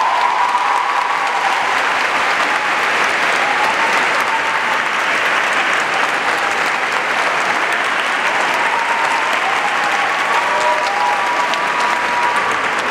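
Theatre audience applauding steadily, with cheering shouts rising above the clapping.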